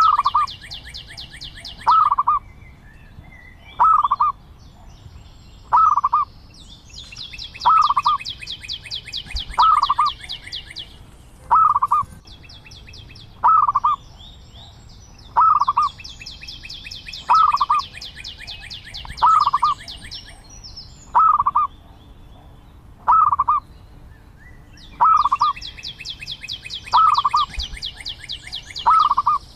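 Zebra dove calling: a short, loud note repeated about every two seconds, steadily throughout. A high, rapid trill comes in bursts of two to four seconds, about four times.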